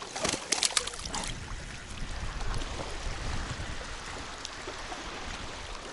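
Steady rush of wind and lapping water, with wind rumbling on the microphone. A cluster of sharp clicks and rattles in the first second.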